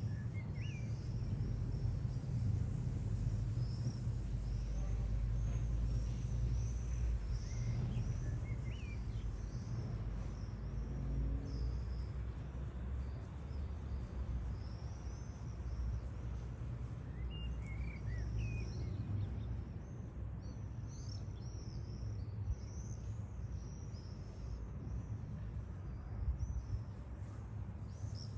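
Many small birds calling in short, high-pitched chirps, growing busier in the second half, over a steady low rumble.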